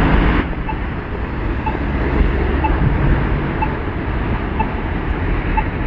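Pedestrian crossing signal beeping about once a second, a short high beep each time, over a steady low street rumble that is louder in the first half second.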